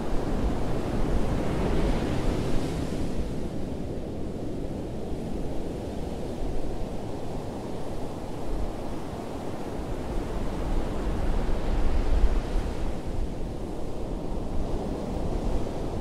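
Ocean surf: waves breaking and washing up the shore in a steady hiss over a low rumble, swelling near the start and again in the last few seconds.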